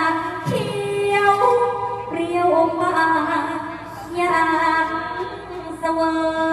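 A woman singing a Thai sepha recitation in long, drawn-out phrases, holding notes and gliding slowly between pitches.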